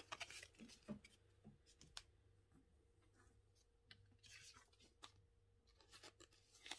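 Near silence, broken by faint scrapes and light taps of Topps Match Attax trading cards being shuffled against each other and handled on a table.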